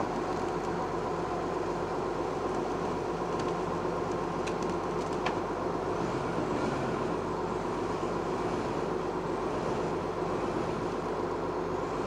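Bulldozer's diesel engine running steadily as it hauls a log on a steel cable, with no change in speed.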